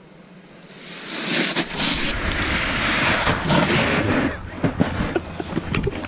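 Snowboard sliding and scraping over snow, a rough hiss that grows loud about a second in. Later it gives way to scattered crunches and knocks in the snow.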